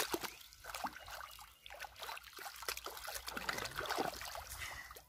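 Shallow, muddy pond water splashing and trickling in short, irregular bursts as hands grope through it for fish.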